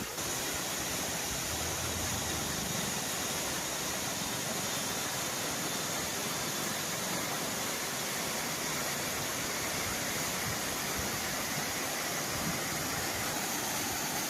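Waterfall: falling water making a steady, unbroken rush of noise.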